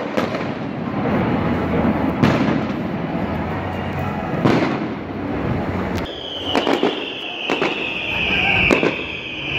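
Fireworks display: aerial shells bursting with sharp bangs, a few seconds apart at first and then a quicker run of bangs in the second half, over a steady rumble. A high whistling tone starts about six seconds in and slowly falls in pitch.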